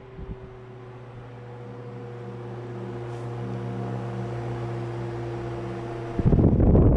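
GE oscillating pedestal fan's electric motor humming steadily, the hum growing louder as the head turns back toward the microphone. About six seconds in, the rush of air from the blades hits the microphone as loud wind noise.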